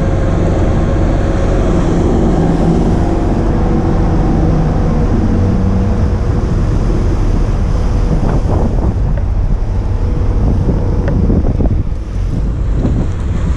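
Pilot boat under way: its engine drones steadily over water rushing along the hull, with wind buffeting the microphone. The engine tone thins after about halfway through, leaving mostly the rush of water and wind as the boat comes alongside the ship.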